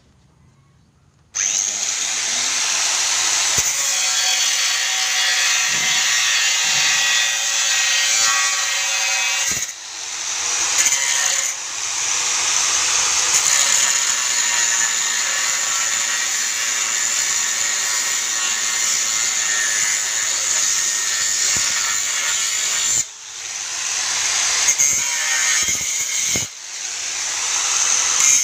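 Bosch GWS 060 angle grinder running with its disc ground into a steel angle bar: a loud, steady high-pitched whine and grinding noise. It starts abruptly about a second in and dips briefly four times, each time picking back up.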